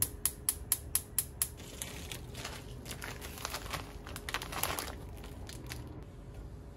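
Modena gas hob's spark igniter clicking rapidly, about four clicks a second, as the burner is lit, stopping about a second and a half in. Then a plastic bag crinkles as it is picked up and handled, loudest a little after the midpoint.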